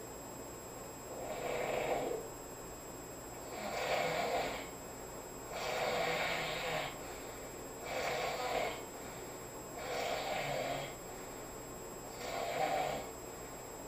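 A sleeping man snoring, one snore about every two seconds, six in all, each lasting about a second.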